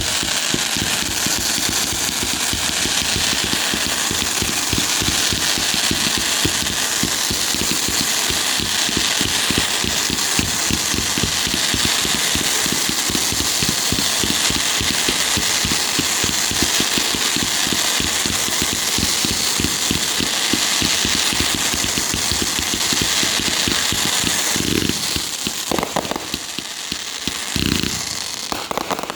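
Consumer fireworks going off in a dense, continuous rapid crackle for about 25 seconds, then thinning to a few separate bangs near the end before stopping abruptly.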